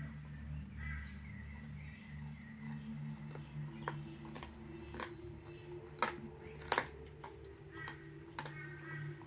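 Belgian Shepherd dog gnawing a raw leg bone, teeth cracking and crunching on the bone. From about four seconds in come several sharp cracks, the loudest a quick pair about seven seconds in, over a steady low hum.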